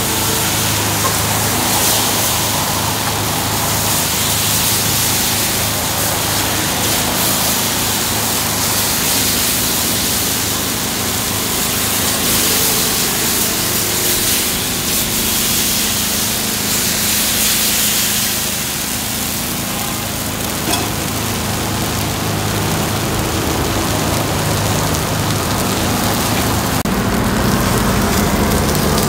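Takoyaki cooking on a griddle, sizzling in a steady hiss over a low, even hum.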